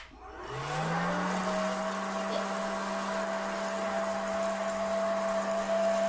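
Hot-air popcorn maker switched on with a click, its fan motor spinning up with a rising whine over about a second, then running steadily with a hum and a rush of blown air.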